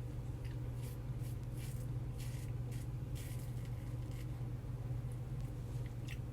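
Safety razor with a T-plate head scraping through lather and stubble: several short rasping strokes, most in the first four seconds and one more near the end, over a steady low hum.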